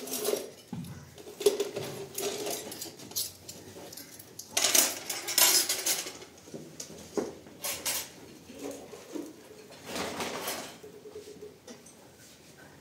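Ceramic plates and metal spoons being set down on a floor cloth for a meal, with scattered clinks and knocks of dishes and cutlery and a few short bursts of rustling.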